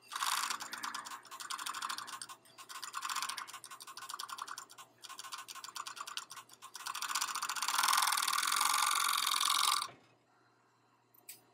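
A Juki MO-2400-series five-thread industrial overlock stitching through fabric in a rapid clatter, pausing briefly a few times. It then runs steadily for a few seconds as it chains off past the end of the seam, and stops about ten seconds in.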